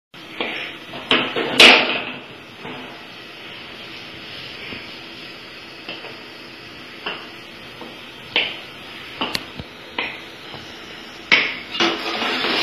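Cooking utensils knocking and scraping against metal pans: a wooden spatula turning rose pitha in a karahi of hot oil, then a metal spoon stirring sugar syrup in an aluminium pot. About a dozen sharp clacks, the loudest about a second and a half in, over a steady hiss of frying oil.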